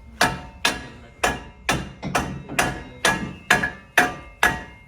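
Hammer striking metal on a car's front suspension, a steady run of about ten blows at roughly two a second, each ringing briefly.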